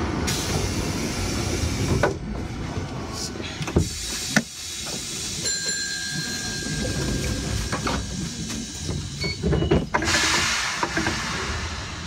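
Keifuku Randen tram standing at a station platform: a low steady rumble from the car's on-board equipment, with a few sharp clicks and knocks. A thin steady high tone sounds for a few seconds midway, and a short burst of air hiss comes near the end.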